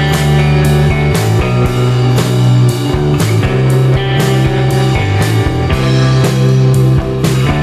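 Rock music with guitar and drum kit, a steady beat about twice a second.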